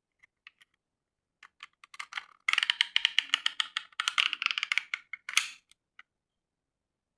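Snapper 35mm film camera being rewound by hand: a few scattered clicks, then a rapid run of small mechanical clicks as the exposed film is wound back into its cartridge, ending with a short louder rasp about five seconds in.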